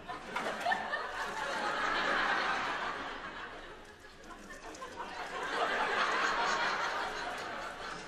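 Theatre audience laughing in two waves. The first wave rises about half a second in and fades by four seconds, and the second swells again about five seconds in.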